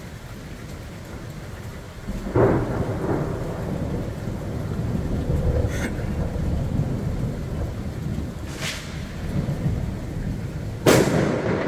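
Heavy rain falling steadily, then close thunder: a sharp crack about two seconds in that rolls into a long low rumble, and a second loud crack near the end.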